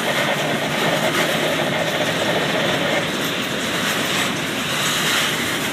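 Freight train cars (boxcars, covered hoppers, a centerbeam flatcar) rolling steadily past at close range: the continuous noise of steel wheels running on the rails.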